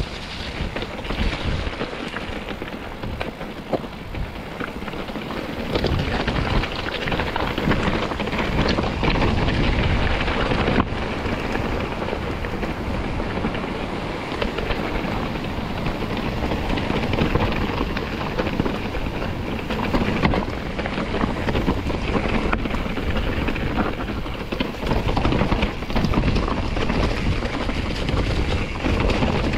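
Wind buffeting the microphone of a camera on a moving mountain bike, a loud gusting rumble that swells and falls, mixed with the bike's rolling noise on the trail.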